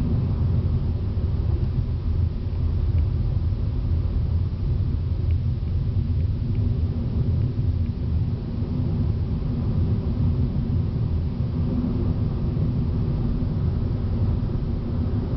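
Steady low road rumble of a car driving at speed, heard from inside the cabin: tyre and engine noise with a faint steady hum.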